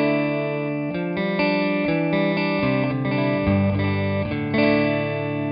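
Clean electric guitar, a PRS Silver Sky, played through an RFO Electronics Waterfall uni-vibe pedal: ringing chords and single notes that change every half second or so.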